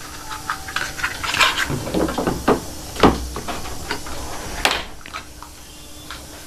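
Hard plastic cupboard parts clicking and knocking as a plastic side connector is handled and pressed onto the top edges of the panels, with two sharper knocks about three seconds in and a second and a half later.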